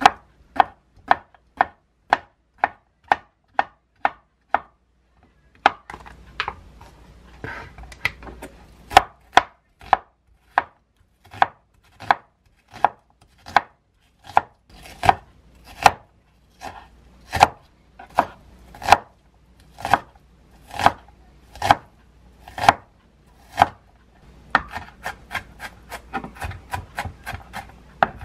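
Chef's knife cutting on a wooden cutting board: single knocks about twice a second as a king oyster mushroom and then an onion are sliced, turning to a quicker, softer run of chops near the end as the onion is minced.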